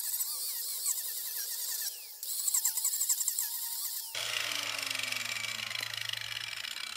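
Makita angle grinder with a King Arthur Lancelot chain-cutter disc carving into cedar: a high whine that wavers as the disc bites the wood, easing briefly about two seconds in. About four seconds in the cutting stops and the motor winds down with a slowly falling tone.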